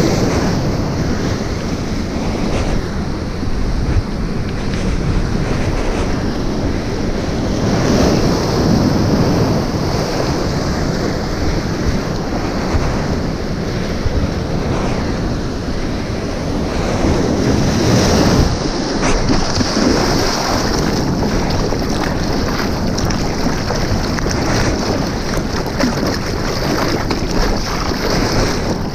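River-mouth surf washing and breaking over rock-breakwater boulders, in slow surges, with wind rumbling on the microphone.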